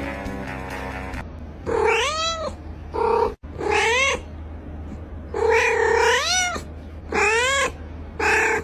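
A cat meowing loudly and repeatedly: about six drawn-out meows, each bending up and then down in pitch, some long and some short. Background music plays for about the first second.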